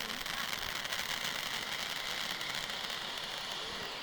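A lit firework spraying sparks, giving a steady hiss with dense fine crackling.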